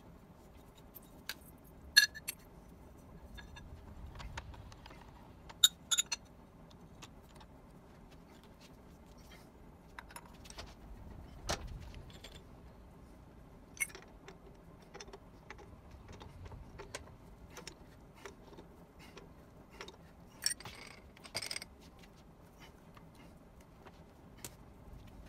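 Scattered light metallic clinks and rattles from hand work at a steel milling-machine vise: steel chips being brushed out and tooling and a steel plate being handled and set in the vise. The sharpest clinks come about two seconds in, around six seconds, and again around twenty-one seconds.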